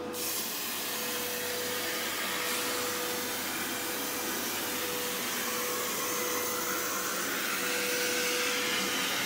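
CNC plasma cutter cutting a slot in an aluminium mast tube. The plasma arc makes a steady, even hiss that comes on right at the start, with a steady tone underneath.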